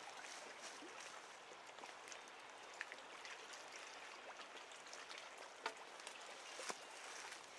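Faint, steady watery hiss of wind-ruffled creek water lapping at the bank, with a few sharp ticks scattered through it.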